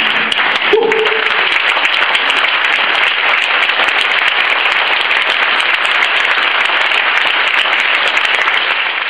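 Audience applauding steadily with dense, even clapping.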